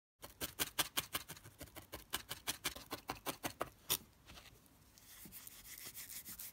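A felting needle jabbing rapidly through a roll of wool into a foam pad, about six sharp ticks a second. About four seconds in the jabbing stops and gives way to a soft rubbing hiss as the wool is rolled between the fingers.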